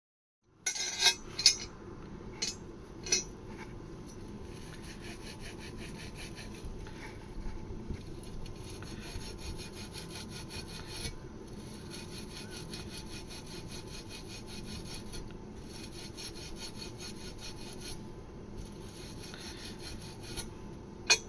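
Copper pipe being scrubbed with an abrasive to clean it before soldering: a steady, rhythmic rubbing with a few brief pauses. There are a few sharp knocks in the first few seconds and one more near the end.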